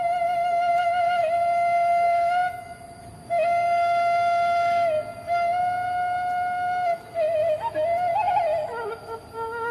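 Sundanese bamboo suling flute playing a slow melody: long held notes with breath pauses between phrases, then quick ornamented turns and a step down to a lower note near the end.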